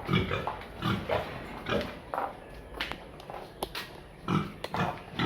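Pigs grunting in a pen: a string of short grunts, about two a second, with a few sharp knocks between them.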